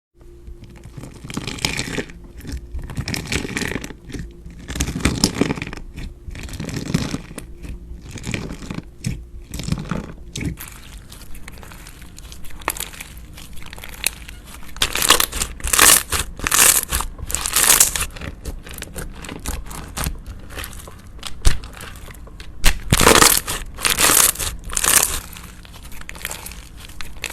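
Hands kneading, pressing and stretching slime, making crackling, crunchy squishes in irregular strokes; the loudest strokes come in clusters in the second half.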